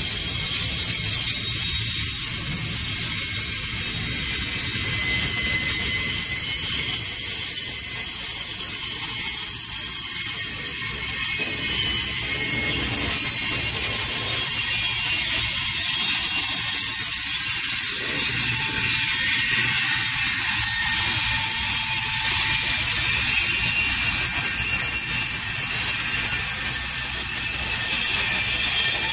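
Double-stack container train rolling past: a continuous rumble and clatter of steel wheels on the rails, with high-pitched squealing tones running through it, strongest in the middle.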